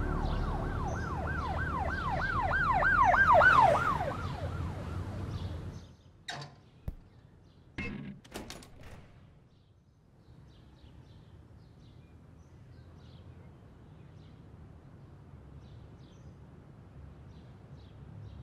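Emergency siren yelping, its pitch sweeping up and down about three times a second, growing louder over low sustained tones and then cutting off after about five seconds. A few sharp knocks and clicks follow, then faint outdoor ambience.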